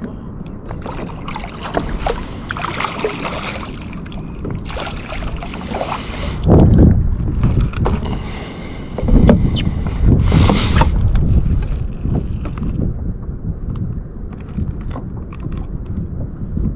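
Wind buffeting the microphone aboard a fishing kayak: a steady low rumble that swells louder about six seconds in and again from about nine to eleven seconds, with scattered small clicks and knocks.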